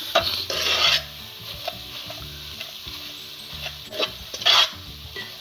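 A spoon stirring and scraping onion-tomato masala with chilli and turmeric powder as it sizzles in a non-stick kadai: a loud scraping stroke about half a second in and another about four and a half seconds in, with a low sizzle between. The masala is being sautéed on a low flame until it turns dark.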